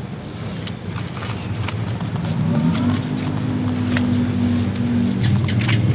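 A motor vehicle engine running with a steady hum that grows louder about halfway through, a deeper tone coming in near the end. Under it are short crackles of hands working the soil mix in a polybag.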